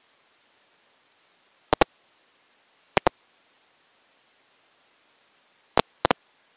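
Fireworks shells bursting overhead: sharp, very short bangs, mostly in quick pairs, about two seconds in, three seconds in and again near the end, over an otherwise very quiet background.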